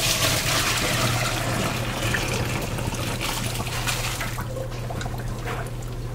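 Pasta water poured from a pot through a stainless steel colander into a steel sink: a steady rush of water that thins out about four and a half seconds in to trickles and drips as the spaghetti slides out.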